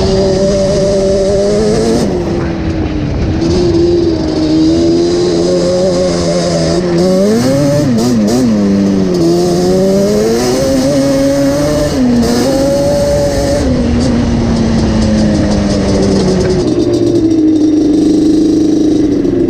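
Yamaha Banshee 350 ATV's twin-cylinder two-stroke engine running under way, its pitch rising and falling again and again as the throttle is opened and closed.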